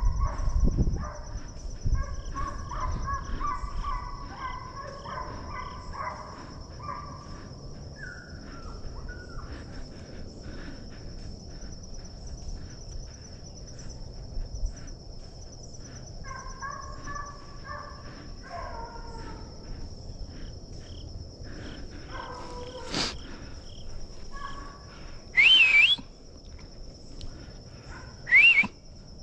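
A pack of deer hounds baying in the distance, several voices overlapping in bursts, over a steady high insect buzz. Near the end come two loud, sharp, rising whistles.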